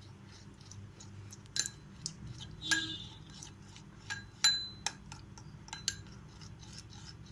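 A spoon clinking against a bowl: a handful of separate light clinks, several with a brief high ring.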